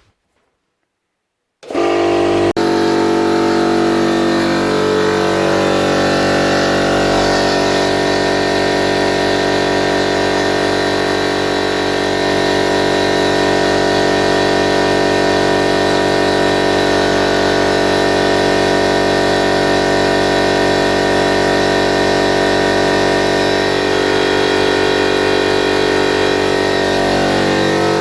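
50-litre oil-lubricated air compressor starting abruptly about two seconds in and running steadily on its first run, its pump filling the tank.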